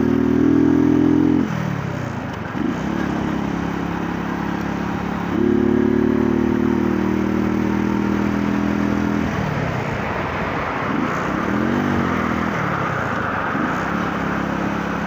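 A 125 cc motorcycle engine running under way. It pulls at a steady pitch, drops as the throttle eases off about two seconds in and again around nine seconds, and swings down and up in pitch a few times as it is blipped before settling again.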